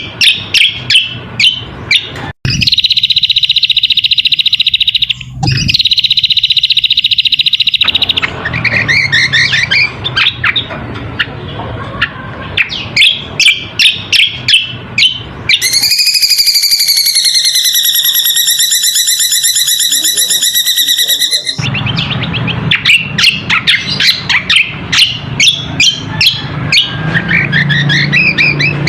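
Cucak kombo (kecial kombok) song as a lure call: fast, sharp chirps in quick runs, broken by a long buzzy trill early on and a long rasping call with many overtones about halfway through.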